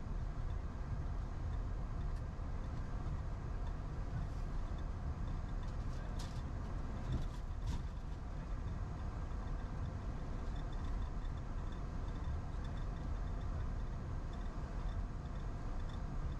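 Steady low rumble inside a jet airliner's cockpit as it taxis, from its engines and its wheels rolling over the taxiway, with a couple of brief clicks in the middle.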